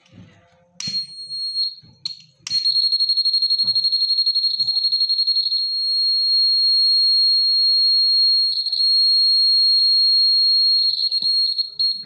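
Piezo buzzer of a home-made flame-sensor fire alarm sounding one steady high-pitched tone, triggered by a lighter's flame: a disposable lighter clicks about a second in and again about two and a half seconds in, and the buzzer then sounds continuously, breaking into short stutters near the end.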